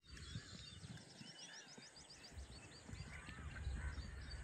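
Birds calling outdoors: a quick run of small rising chirps about a second in, then wavering warbled calls a little later, over a faint low rumble of wind or outdoor background.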